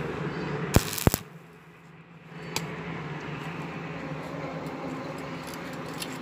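Stick-welding arc crackling on thin square steel tubing for about the first second, with two sharp knocks just before it stops. A steady low hum remains after the arc is broken.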